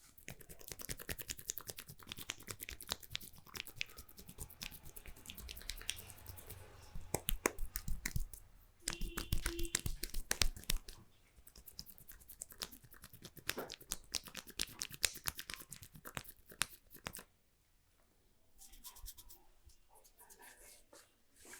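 Hands massaging at speed, close to the microphone: a dense run of crackly rubbing and patting strokes. They break off briefly near the end, then start again.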